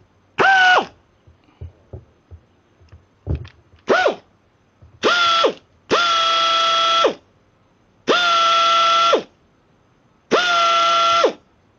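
Compressed air blowing out of the air hose's regulator and gauge fitting in six whistling blasts: two short ones in the first four seconds, then four of about a second each, the whistle dropping in pitch as each one cuts off. The air is being let out to check the regulator's pressure setting. Light clicks of fittings being handled come between the first blasts.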